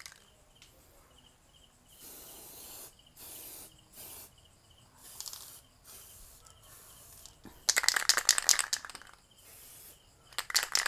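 Aerosol spray can of lacquer hissing in several short bursts. The can is then shaken, its mixing ball rattling loudly, about eight seconds in and again near the end.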